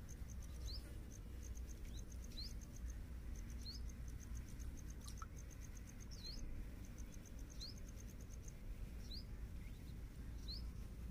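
Lakeside ambience: a small bird repeating a short rising chirp every second or two, with bursts of fast, high, even chirping over a low steady rumble.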